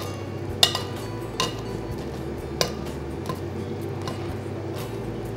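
A wire spider skimmer stirring fried dough balls in syrup in a ceramic bowl, clinking sharply against the bowl's side a few times, mostly in the first half. The balls are being turned so they soak up the syrup.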